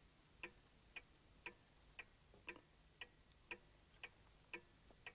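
A clock ticking steadily, about two ticks a second, with little else to be heard.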